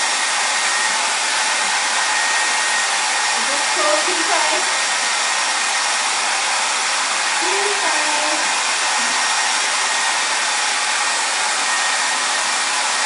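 Handheld hair dryer running steadily, blowing hot air onto a row of wax crayons glued along a canvas to melt them, with a faint steady whine in its noise. Faint voices are heard under it twice.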